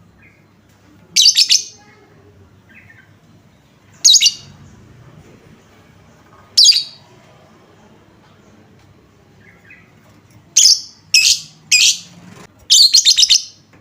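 Lovebird calling in loud, shrill chattering bursts: single bursts about a second in, at about four and about six and a half seconds, then a quicker run of four near the end, the last a rapid stutter.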